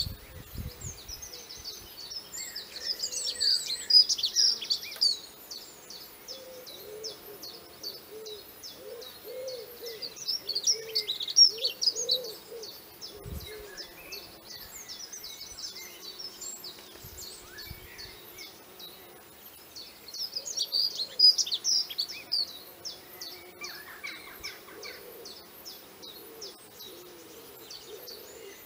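Birds singing and chirping: many short high notes, with lower-pitched calls mixed in. The song comes in louder bursts a few seconds in, near the middle and about two-thirds of the way through.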